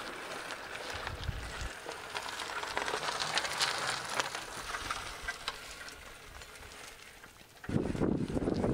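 Bicycle tyres rolling over a dirt and gravel trail: a steady crackling hiss with many small pops and crunches. Near the end it cuts suddenly to a low rumble of wind on the microphone.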